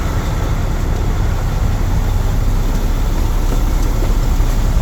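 Mercedes-Benz OM460LA inline-six turbo diesel engine running steadily, a dense low rumble.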